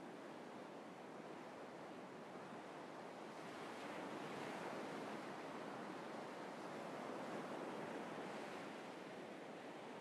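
North Sea surf breaking and washing up a sandy beach: a steady rush of waves that swells a few seconds in and eases a little near the end.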